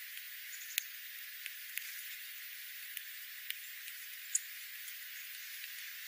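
Dark-eyed juncos and sparrows pecking at birdseed on gravel: irregular light ticks over a steady hiss, with one short high chip from a bird about four seconds in.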